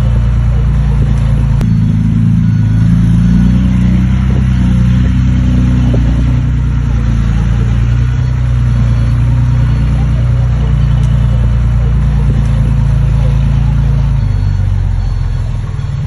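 Heavy earthmoving machine's diesel engine running loud and steady, its pitch wavering a little, easing off slightly near the end.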